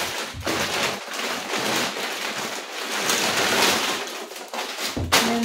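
Plastic carrier bag rustling and crinkling as hands rummage in it and pull groceries out, a continuous crackle that is loudest about halfway through.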